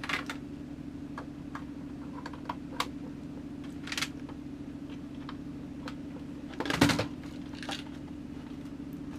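Scattered light clicks and knocks from an external hard-drive enclosure being handled and put back together, with a louder knock about seven seconds in. A steady low hum runs underneath.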